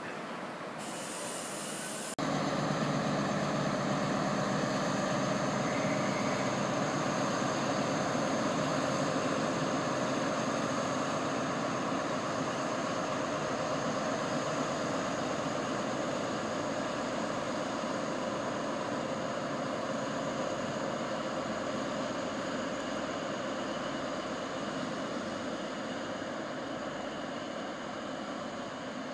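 Diesel engine of an InterCity 125's Class 43 power car working as the HST pulls out. The engine comes in suddenly about two seconds in, just after a brief hiss, then runs steadily and slowly fades.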